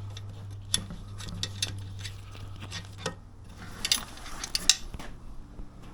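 Scattered light clicks and clinks of pannier mounting hardware being handled and fitted, with a quick cluster of sharper clicks about four seconds in, over a low steady hum.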